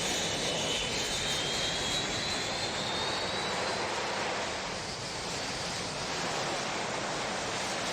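Recorded sound effect of a steady roaring engine-like noise, with a faint high whine slowly rising in pitch over the first few seconds.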